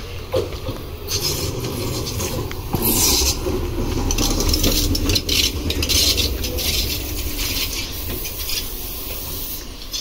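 Meitetsu electric train rolling past close by on a curve: a steady low rumble of wheels on rail, with harsh high scraping from the wheels that is loudest in the middle as the cars go by.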